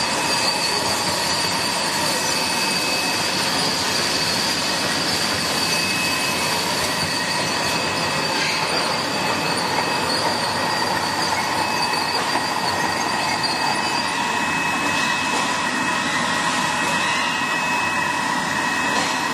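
Vertical wet-glue labeling machine running: the conveyor chain and feed screw carry tin cans through the labeller with a steady mechanical rattle and several steady high whines, the highest of which fades out about two-thirds of the way through.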